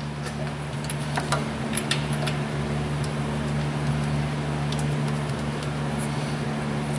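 Steady low mechanical hum, with scattered light clicks and taps of hand tools on metal under the truck.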